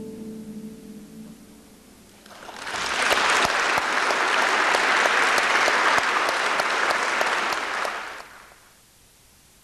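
The last chord of a concert harp rings and dies away, then an audience applauds for about six seconds, the clapping swelling about two seconds in and fading out near the end.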